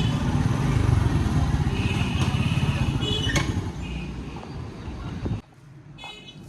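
Busy street traffic with motorcycle engines running and a couple of short horn beeps. The sound drops off suddenly about five seconds in.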